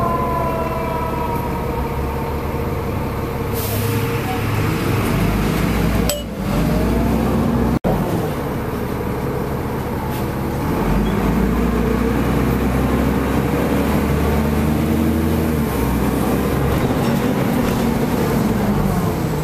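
Heavy vehicle engine running steadily, heard from inside a city bus, with a siren winding down about a second in. In the second half the engine revs rise and fall.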